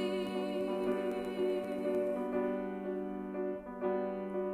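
Slow, gentle instrumental music with piano and long held notes, without singing.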